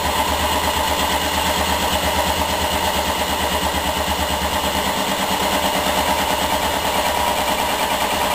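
Rhombic-drive Stirling engine running under an electrical load with a steady rhythmic beat, its internal pressure just raised with compressed air after the load had slowed it.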